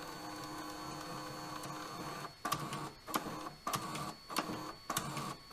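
Creality Hi 3D printer and its CFS filament system running quietly. A steady whir with fixed tones gives way, a little over two seconds in, to short stop-start motor bursts, roughly two a second.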